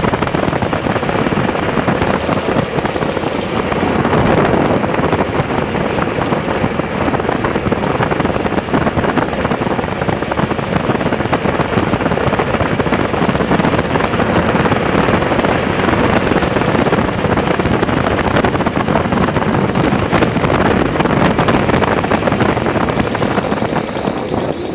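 Engineless soapbox cart running fast downhill on asphalt: a loud, steady rolling rumble and rattle from its wheels on the road, mixed with wind buffeting the onboard microphone.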